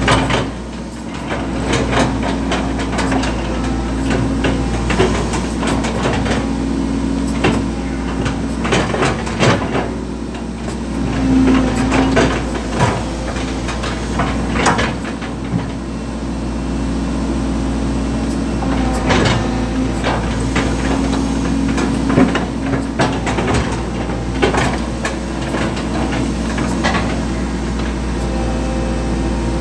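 Excavator engine running steadily, heard from inside the cab, with many irregular knocks and scrapes as the steel bucket pushes and sets down concrete drain covers in loose soil.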